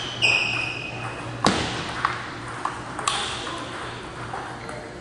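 Table tennis rally: the ball clicks off the paddles and the table about four times, roughly half a second apart, the first click loudest. A high, steady squeal comes near the start, before the first hit.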